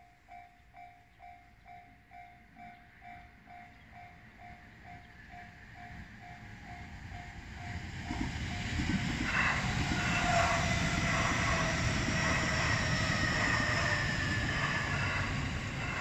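Japanese level-crossing warning bell ringing in even pulses about three times a second, then a JR Nambu Line electric commuter train passing close by. It swells from about six seconds in to a loud rumble of wheels on rails with a high whine over it, drowning out the bell.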